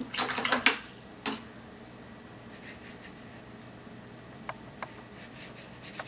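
Watercolour paintbrush being handled: a few short scrapes and a sharp tap in the first second and a half, then faint soft brushing and a couple of small ticks as the wet brush works the paper.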